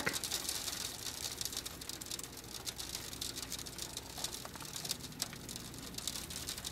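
Fast, irregular ticking patter of snow hitting the car's windshield and body, heard from inside the cabin over a low steady hum of the moving car.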